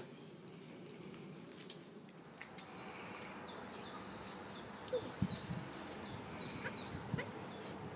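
Birds chirping over a steady faint background, with a few taps of footsteps on paving stones around five to seven seconds in.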